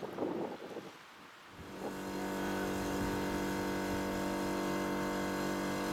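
Tractor engine running steadily at an even speed, coming in about two seconds in.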